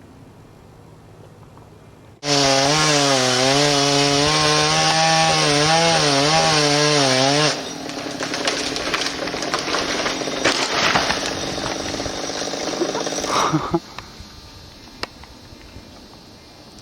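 Chainsaw comes in suddenly about two seconds in, running at high revs with a wavering pitch, then cuts into wood for about six seconds, the sound turning rougher and noisier under load, and stops abruptly near the end.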